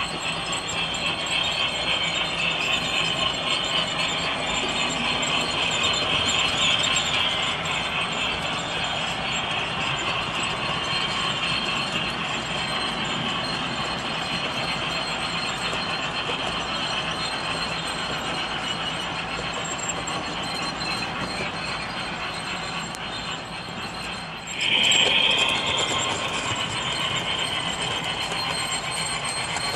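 HO-scale model passenger train, a Union Pacific Challenger 3985 pulling yellow cars, running along the layout track with a steady mechanical rattle of small metal wheels on rail. Near the end a sudden louder high squeal lasts a second or so.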